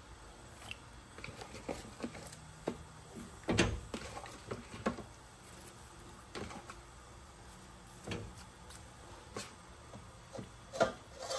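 Broccoli florets being dropped into a stainless steel pot: scattered light knocks and taps against the metal, the loudest about three and a half seconds in and again near the end.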